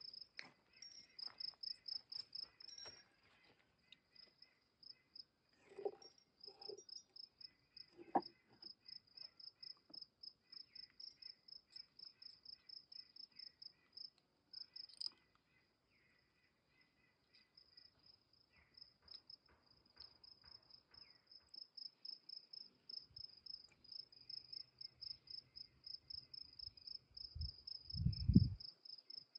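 Faint crickets chirping in a steady, high, pulsing rhythm of a few chirps a second. There are a few soft knocks, and a brief low rumble near the end.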